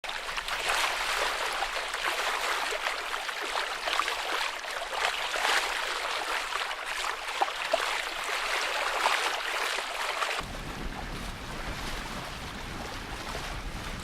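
Water rushing and splashing past a small sailing boat's hull, a steady crackly hiss. About ten seconds in it changes abruptly to a quieter, lower rumble.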